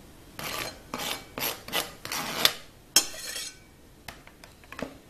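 Kitchen knife blade scraping chopped boiled egg white across a plastic cutting board onto a plate, in about five short rasping strokes, followed by a sharp click about three seconds in and a few faint taps.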